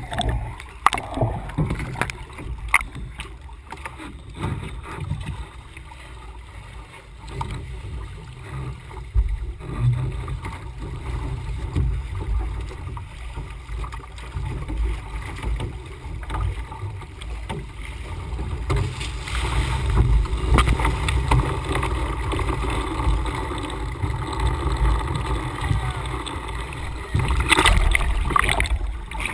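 Water sloshing and gurgling against the hull of a capsized Laser 2000 dinghy, heard through a camera mounted on the boat at the waterline and partly underwater, so the sound is muffled and rumbling. Scattered knocks come early on, and the splashing grows louder and brighter about two-thirds of the way through.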